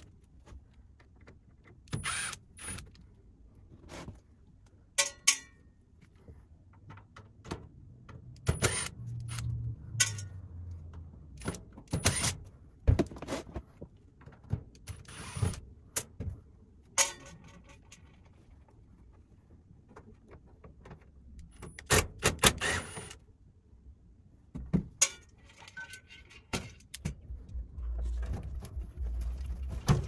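Irregular clinks, knocks and metallic rattles of hand tools and screws on the sheet-metal casing of an Actron Air indoor unit as its top panel is unscrewed and taken off.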